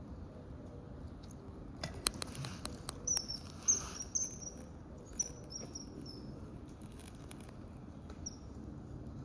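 Common kingfisher giving short, high, sharp whistled calls: a quick run of them about three seconds in and a single one near the end. A few sharp clicks come just before the calls.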